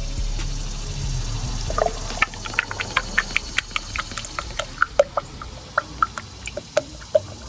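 Liquid glugging as it is poured from a bottle, typical of fresh motor oil going into an engine's filler: an irregular run of short gurgling blips, several a second, starting about two seconds in and stopping near the end.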